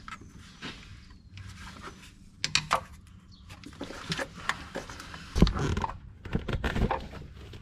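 Scattered clicks and light knocks of a screwdriver and hands working among hoses and parts in a utility vehicle's engine bay, with a few heavier thumps about five and a half seconds in.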